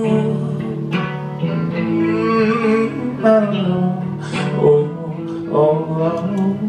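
Electric guitar played live through an amplifier, an instrumental passage of a slow folk-rock song with no words sung.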